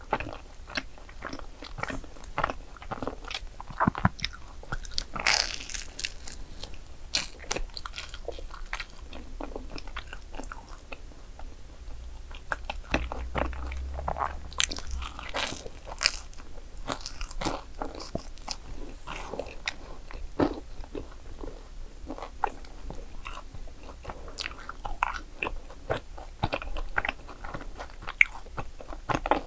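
A person biting into and chewing crisp croffles (croissant waffles), a steady stream of small crackling crunches with louder bites here and there.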